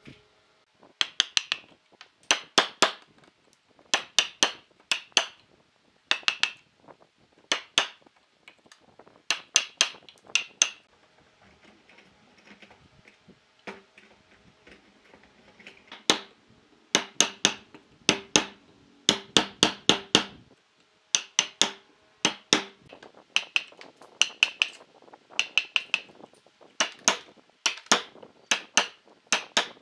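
Hammer striking a steel chisel to chop out a notch in a solid-wood log, with sharp ringing blows in quick groups. There is a pause in the middle before the blows start again.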